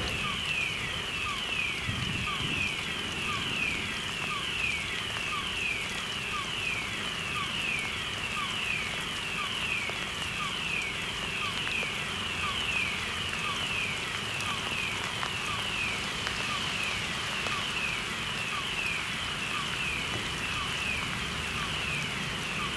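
Electronic fire-alarm sounder of a chemical plant's fire detection system going off, a high-pitched tone sweeping downward again and again in quick succession without a break.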